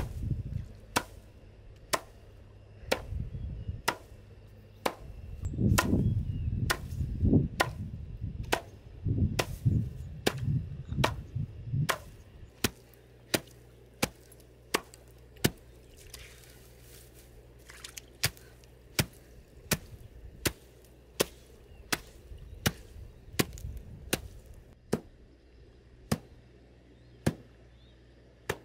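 Rhythmic chopping of a heap of fresh green leafy plants on stream-bed rocks with a long-handled blade, one sharp knock about every second, kept up steadily.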